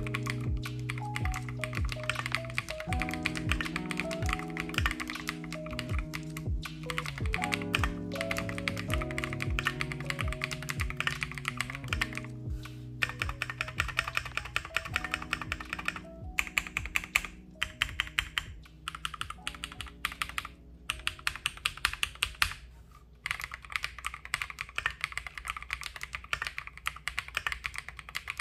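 Fast typing on a KiiBoom Phantom 81 gasket-mount mechanical keyboard: a dense run of keystroke clacks, with a brief pause near the end. Background music plays under the typing for roughly the first half, then thins out.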